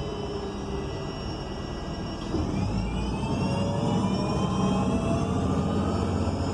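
City bus drivetrain heard from inside the cabin: a Cummins Westport L9N natural-gas engine and Voith D864.6 automatic transmission. It runs steadily, then about two seconds in it gets louder, and its whines climb steadily in pitch as the bus accelerates.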